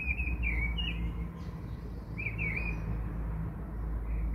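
Birds chirping in short bursts of quick, high chirps a couple of seconds apart, over a steady low hum.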